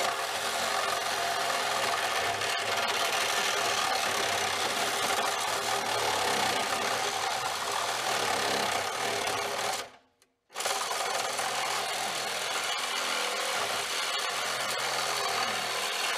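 Reciprocating saw cutting through a rusty steel exhaust tailpipe with a steady rapid buzzing rasp. It stops for about half a second about ten seconds in, then carries on cutting.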